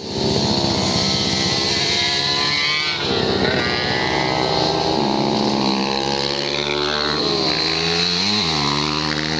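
Motocross dirt bike engine revving, its pitch shifting up and down with the throttle and gear changes, with a quick dip and climb in pitch about eight seconds in as the bike passes close.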